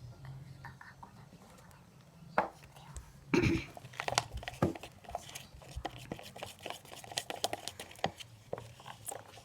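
Plastic spoon stirring and scraping thick glue-and-water slime mixture in a plastic cup: a run of irregular clicks, taps and scrapes starting about two seconds in, with one louder scrape a second later.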